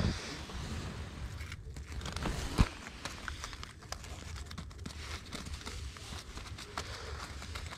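Faint rustling of clothing and tent fabric, with small clicks, as an angler shifts about and puts down a short ice-fishing rod. One sharp knock comes about two and a half seconds in.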